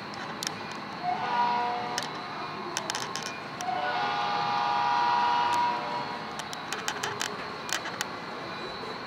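Horn of an HO scale model diesel locomotive's sound system: a short blast about a second in, then a longer, louder blast about three and a half seconds in, each a chord of several notes. Scattered sharp clicks sound throughout.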